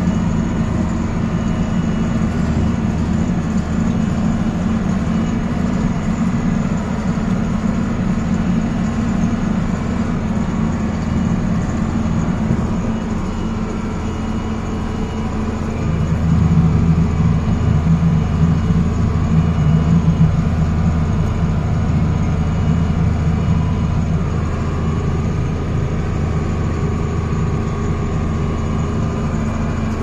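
Farm tractor engine running steadily, heard from inside the cab, louder for a few seconds just past halfway.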